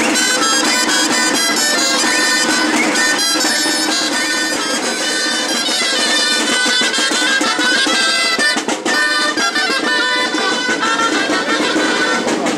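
A street band of reedy, nasal shawms (Navarrese gaitas) playing a tune together over snare and bass drum beats, walking along as they play.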